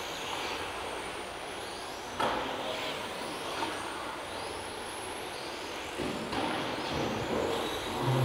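Electric 1/10 touring cars with 17.5-turn brushless motors racing: a steady noise of motors and tyres with thin high whines rising and falling as the cars speed up and slow down. A sudden knock about two seconds in, and the sound grows louder near the end.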